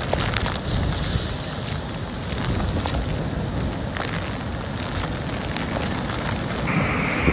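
Strong typhoon wind buffeting the microphone over the steady rush of heavy surf breaking against a rock breakwater, with a few brief sharp gusts.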